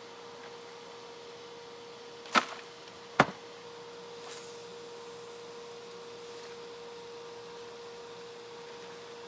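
Two sharp clicks about a second apart as a spinning rod and reel are picked up and readied, then a faint swish of the cast a second later, over a steady one-tone hum.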